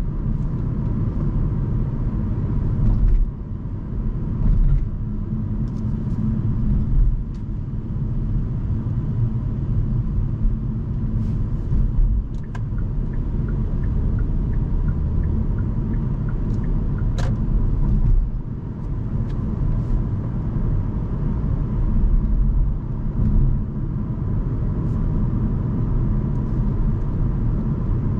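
Hyundai Kona Hybrid driving on city roads: a steady low road and tyre rumble. A run of light, evenly spaced ticks comes in for a few seconds around the middle.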